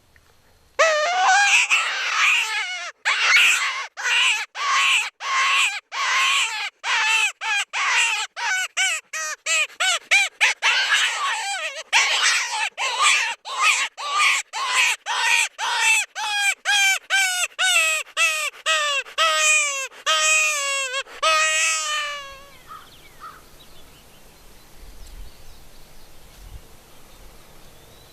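Predator call sounding a long, rapid string of harsh, squealing distress cries to lure coyotes, about two to three cries a second, that cuts off suddenly about 22 seconds in. Faint open-air background follows.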